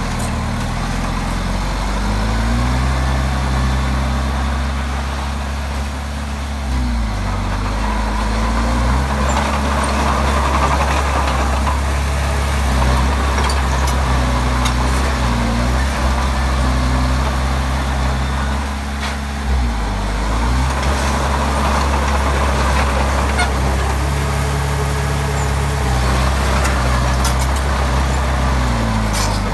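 Komatsu D20P bulldozer's diesel engine running loudly and continuously. Its engine speed drops and picks up again several times.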